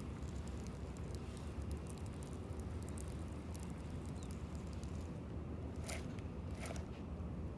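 Steady low outdoor rumble with faint scattered clicks, and two sharper ticks near the end.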